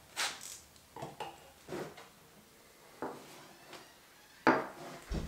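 Metal knocks and clunks from a front-wheel-drive CV half axle being handled against the engine and concrete floor: about six separate sharp knocks, the loudest about four and a half seconds in.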